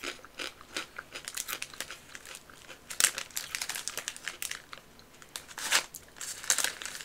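A plastic snack bag crinkling as a hand rummages in it, mixed with crisp crunching of the chips being eaten. The crackles are irregular, louder about three seconds in and again near six seconds.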